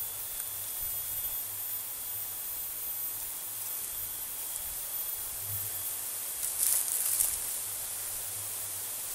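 Steady high hiss of forest ambience with a faint thin steady whine, and a brief rustle of dry leaf litter about two-thirds of the way through.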